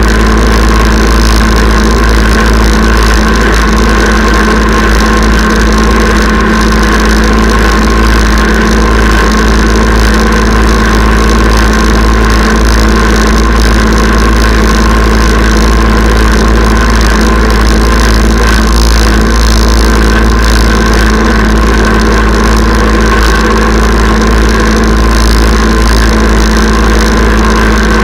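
Kubota diesel tractor engine running steadily at an even speed while towing a chain harrow, picked up close by a camera mounted on the tractor.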